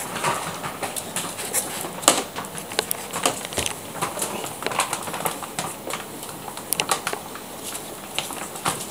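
Five-week-old Labrador puppies' claws clicking and pattering irregularly on a tiled floor as they scramble and jostle, with now and then a high little squeak.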